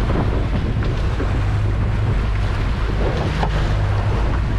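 Boat's engine running steadily under way, with wind buffeting the microphone and the wake rushing along the hull. A single sharp knock about three and a half seconds in.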